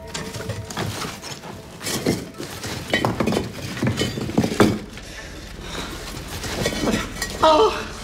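Broken glass and rubble clinking and crunching, a run of sharp clinks and knocks, then a man's voice breaking into a sob near the end.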